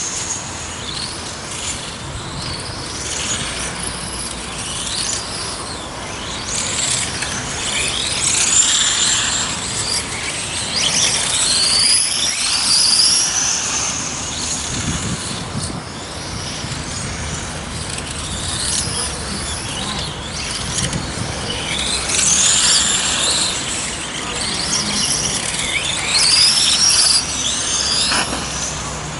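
Several electric radio-controlled racing cars lapping the track: overlapping high-pitched motor whines that rise and fall as the cars accelerate and brake.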